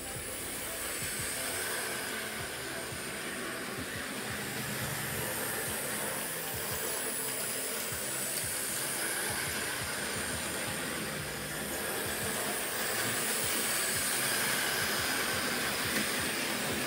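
Hornby Smokey Joe 00-gauge model steam locomotive running along the track: a steady electric-motor whir with the wheels rattling and clicking on the rails, pulling crane wagons.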